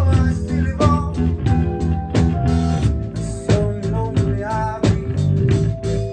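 Live blues band playing: electric guitar over electric bass and a drum kit keeping a steady beat.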